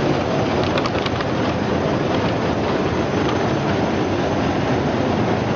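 Brush-type potato washing machine running: a steady mechanical rumble from its motor and rotating brushes, with a few short clicks about a second in.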